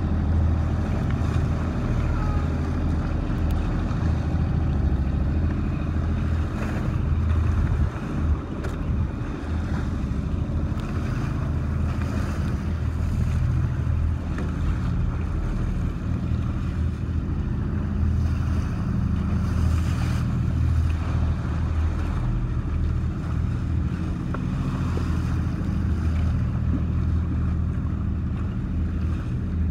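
Engine of a wooden outrigger boat (bangka) running steadily under way, with water rushing past the hull and wind buffeting the microphone.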